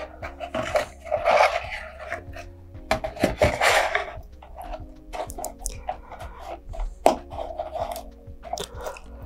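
Hands working a small glued shelf piece into the fin slot of a cardboard model-rocket body tube: rustling, crackly scraping and small clicks, with soft background music.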